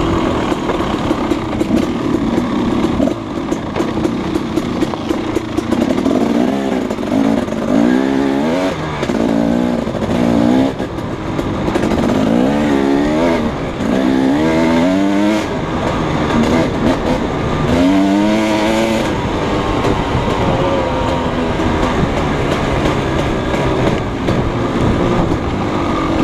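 Husqvarna 300 two-stroke dirt bike engine riding under throttle, its pitch rising and falling again and again through the middle as the rider rolls the throttle on and off.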